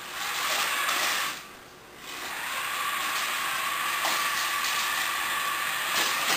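Electric drive motors of a toy R2-D2 Interactive Astromech Droid running as it rolls across a tile floor: a steady whine over noise, dropping away briefly about a second and a half in, then resuming.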